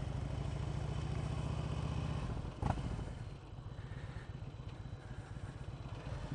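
Cruiser motorcycle engine running at low speed, a steady low rumble, with a single short clunk a little before halfway; after it the engine runs noticeably quieter.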